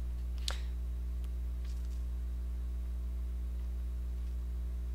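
Steady electrical mains hum, a low buzz that does not change, with a faint click about half a second in.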